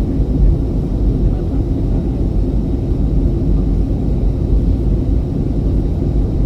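Passenger airliner cabin noise on approach: a steady, deep rumble of engines and airflow, with most of its weight in the low bass and no sudden events.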